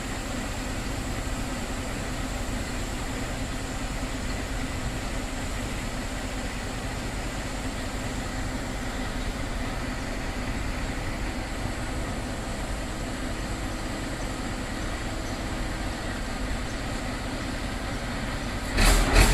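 Concrete pump truck's engine running at a steady pace, an even mechanical hum. Near the end, loud music with a pulsing beat comes in.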